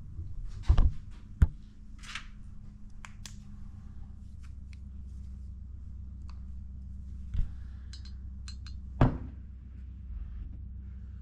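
Metal engine parts being handled on a workbench: a few sharp knocks, the two loudest near the start and another about 9 seconds in, with light clicks between, over a steady low hum.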